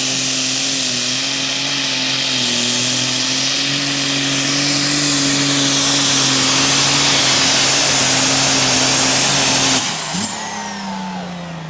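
Heavy super stock pulling tractor's engine at full power under load, a loud steady note creeping slightly up in pitch. About ten seconds in it cuts off abruptly as the pull ends, and the engine winds down in a falling tone.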